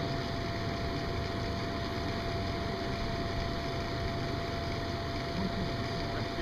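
Steady motor hum with a constant whine above it, unbroken throughout: the electric blower fan that keeps an inflatable finish arch inflated.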